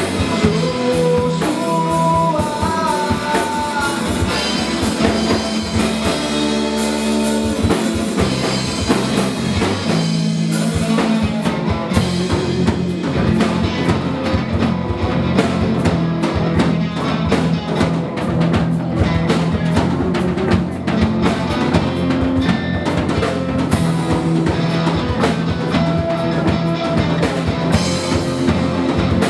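Rock song in an instrumental passage with no singing: a drum kit keeping a steady beat under guitar.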